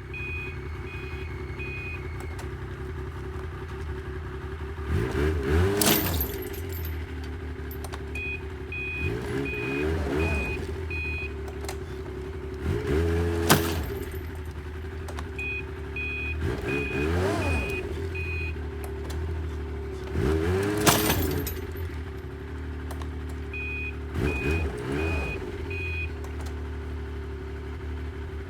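Yamaha Viking snowmobile engine running and being revved over and over, each rev rising and falling about every four seconds, as it strains to haul a heavy log on a sled. A warning beeper sounds in runs of about five short beeps between the revs.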